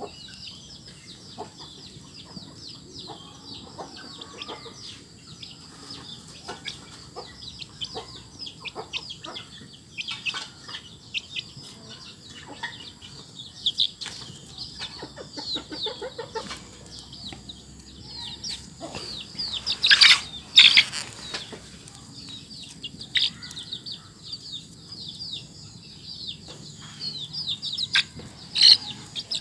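Young free-range village chicken peeping and chirping almost continuously while it is held and rubbed by hand. About two-thirds of the way through it breaks into a louder outburst of calls with rustling noise, and it gets louder again near the end.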